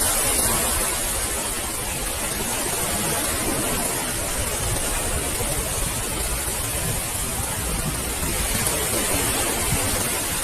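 Ocean waves washing onto a beach: a steady rush of surf with a low rumble underneath, swelling slightly near the start and again near the end.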